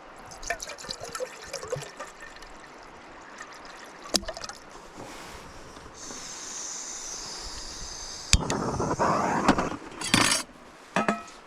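Hot water poured into a carton of dehydrated hash browns to rehydrate them, the loudest pouring coming in the last few seconds, with small clicks and handling knocks before it.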